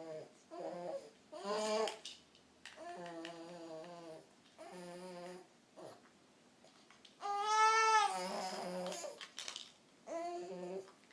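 A person making silly wordless vocal noises: a string of short, wavering, babble-like sounds, with a louder, higher and longer one about seven seconds in.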